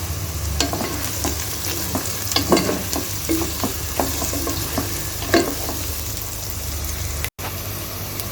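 Potatoes and chopped onions sizzling in oil in a nonstick pan as they are stirred, with the utensil scraping and knocking against the pan now and then. The sound cuts out for an instant about seven seconds in.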